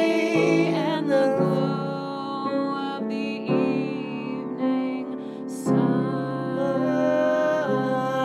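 A slow song with piano chords under a man and a woman singing long held notes, with new chords struck every two seconds or so.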